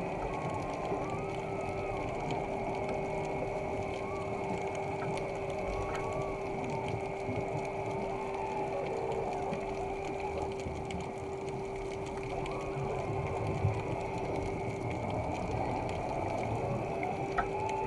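Underwater sound around a helmeted diver: exhaled air bubbling up over a steady low hum with a held tone and faint wavering higher tones, and two short clicks near the end.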